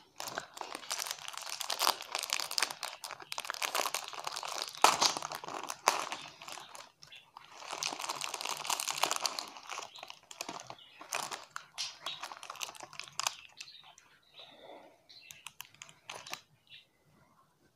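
Plastic wrapper of a packaged chocolate cake crinkling and tearing as it is opened and the cake slices are pulled out. The crinkling is dense for most of the time, then thins to a few scattered rustles and clicks near the end.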